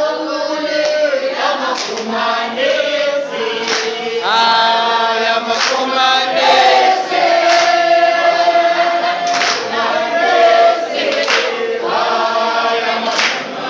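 A crowd of students singing together unaccompanied, many voices holding and changing notes, with a sharp accent about every two seconds.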